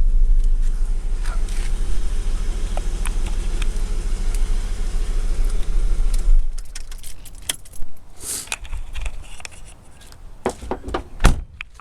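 A 1998 Holden Commodore VT's 3.8-litre V6 idles steadily, then stops abruptly about halfway through as it is switched off. After that come a jangle of keys and a scatter of sharp clicks and light knocks.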